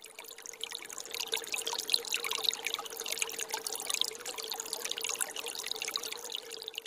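Water trickling steadily, a dense run of tiny splashes, with a faint even hum beneath it.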